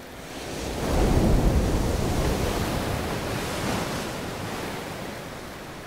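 Sea waves surging and breaking over rocks, a swell of surf building about a second in and slowly ebbing away.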